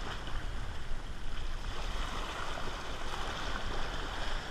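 Small sea waves washing and sloshing against the rocks and concrete blocks of a breakwater, a steady rush of water.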